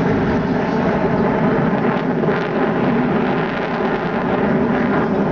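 Steady, loud roar of jet engines from a formation of Su-27 fighters flying overhead.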